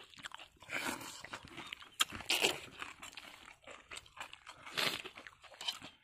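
Dry puffed rice (muri) crunching in short, irregular crunches, the loudest about a second in, around two seconds in and near the end.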